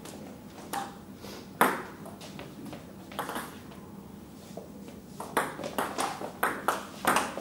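Table tennis ball clicking off bats and table. A few separate clicks come first, the loudest about a second and a half in. From about five seconds in there is a fast rally of hits, about three a second.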